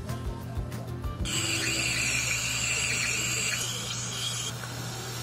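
Aerosol can of 3M carburetor cleaner spraying in one hissing burst of about three seconds, starting a little over a second in, over upbeat background music.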